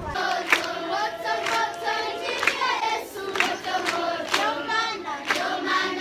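A large group of schoolchildren singing together in chorus, with sharp hand claps keeping time.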